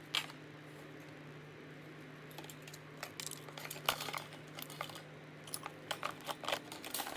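Hand disassembly of a desk fan: a single click near the start, then from about two and a half seconds in an irregular run of sharp clicks and light clatter as small screws and fan parts are handled, over a faint steady hum.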